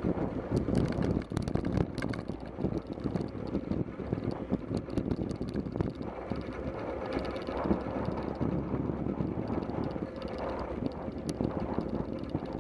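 Wind rushing over the microphone of a camera on a moving bicycle, with low road rumble and many small knocks and rattles from bumps in the tarmac.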